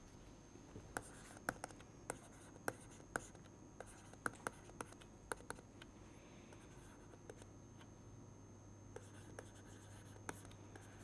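Faint taps and scratches of a stylus writing on a tablet computer's screen. Sharp clicks come about three a second through the first half, then only now and then.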